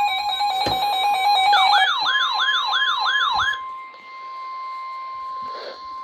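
Weather-radio 1050 Hz warning alarm tone, a steady loud tone that signals a warning is about to be read. For the first three and a half seconds, siren-like sounds are layered over it: fast alternating beeps, a click, then a quick yelping wail of about three sweeps a second. After that only the steady tone remains, ending at the very end.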